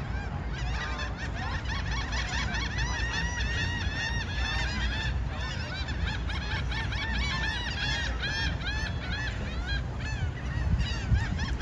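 A large flock of birds calling densely: many short, overlapping arched calls with no pause, over a steady low rumble.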